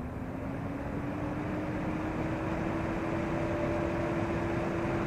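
SilverStone PF120 120 mm liquid CPU cooler's fan ramping up under full CPU load: a steady rush of air with a hum that rises in pitch over the first two seconds, then holds steady as the fan reaches its load speed.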